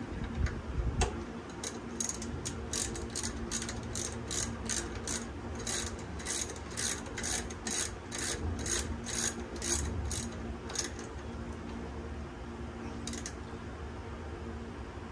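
Hand ratchet wrench clicking as it turns a bolt on the motorcycle's shift linkage, in a steady run of about three clicks a second that stops about two-thirds of the way through, with a brief click again near the end.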